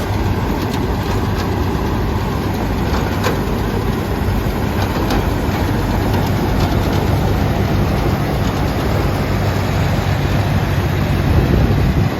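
Diesel engine of a large John Deere farm machine (combine or tractor) running steadily, a low, even drone with a few faint clicks over it.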